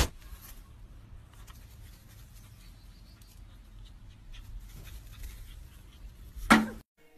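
Low steady rumble on a phone microphone outdoors, with faint scattered rustling ticks. Near the end comes one brief, loud cry.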